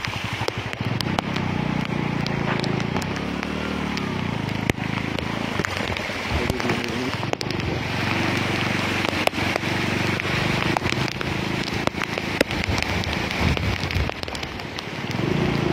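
Heavy monsoon rain falling on a flooded street's standing water: a steady hiss peppered with crackling drop impacts.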